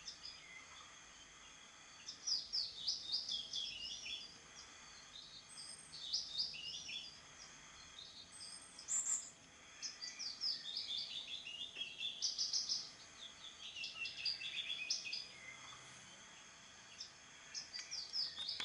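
A songbird singing: several phrases of quick, falling high notes, each a second or two long, with short gaps between them, over a faint steady hiss.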